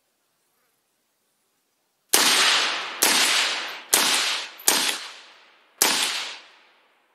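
Five suppressed rifle shots from an AR-style rifle, fired at a steady pace about a second apart, each followed by a long echoing decay.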